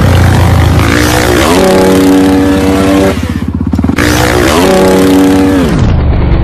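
Motorcycle engine revving hard, loud: the pitch climbs and holds high, twice, and falls away near the end.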